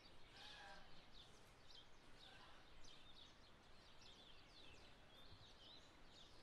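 Faint outdoor birdsong: many short, high chirps from small birds, with a couple of lower calls about half a second and two and a half seconds in, over a soft background hiss.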